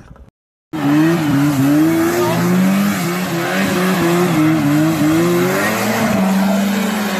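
Snowmobile engine running at high revs, its pitch rising and falling as the sled spins in circles on wet, slushy ice, over a steady hiss of the track and skis sliding through the slush. It cuts in suddenly under a second in.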